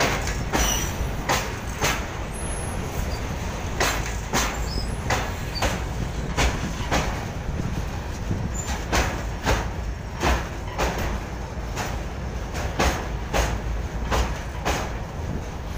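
A freight train of open-top wagons rolling past close by: a steady low rumble of the wagons, with sharp wheel clacks on the rails about twice a second, often in quick pairs as each bogie goes by.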